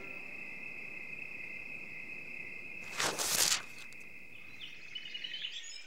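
Crickets chirping steadily as a night ambience, with a brief rush of noise about three seconds in. Birds begin chirping near the end.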